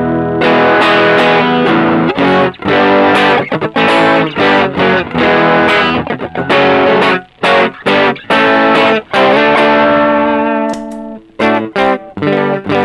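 Electric guitar played through a Caline Green Mamba overdrive pedal in low-gain overdrive, strummed chords and short riffs, with brief breaks in the playing near the middle and toward the end.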